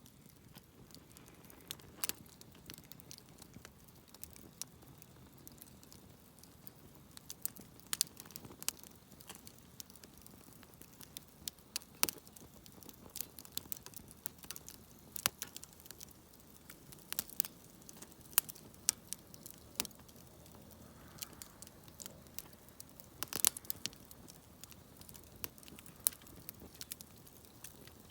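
Wood campfire crackling, with irregular sharp pops and snaps, a few louder than the rest, over a faint steady background.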